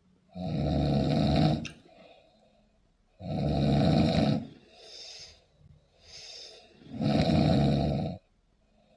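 A heavily drunk man snoring in deep sleep: three loud snores, each about a second and a half long and roughly three and a half seconds apart, with softer breaths between them.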